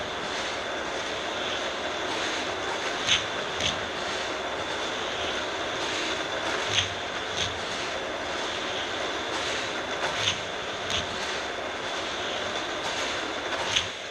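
Battery-powered Hot Wheels track boosters running with a steady motor whir, as two die-cast cars lap the orange track. Sharp clacks come in pairs about every three and a half seconds as the two cars pass, with a single clack near the end.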